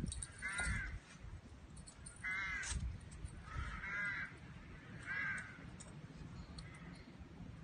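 Crows cawing: five short calls about a second and a half apart, the last one fainter.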